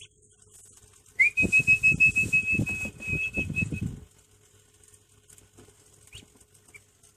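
A high whistled note, held steady for about two and a half seconds after a quick upward slide, starting about a second in, over a quick run of loud low thumps.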